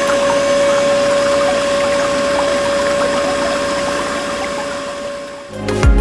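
Mini electric water pump running with a steady high whine, water splashing and trickling through it; it cuts off about five and a half seconds in.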